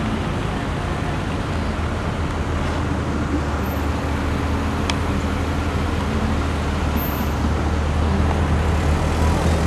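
Car engine and road noise heard from inside the car: a steady low rumble that grows slightly louder toward the end.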